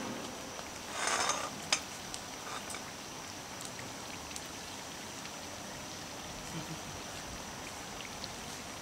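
Steady sizzling of oil frying in a pan. About a second in there is a brief rustle, then a sharp click, as someone sits down on a folding stool.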